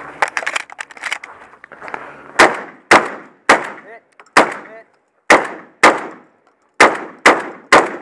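Shotgun firing a rapid string of about nine shots, half a second to a second apart, starting about two seconds in. Struck steel targets ring briefly after a couple of the shots.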